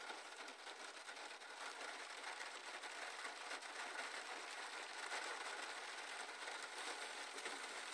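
Heavy rain and hail hitting a car's roof and windshield, heard from inside the cabin: a dense, steady crackle of fine ticks that grows slightly louder.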